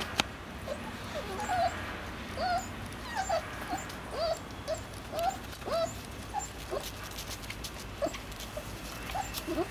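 A litter of three-week-old East European Shepherd puppies whimpering and squeaking while they jostle to nurse: many short, high squeaks a few times a second, some rising and some falling in pitch. One sharp click just after the start.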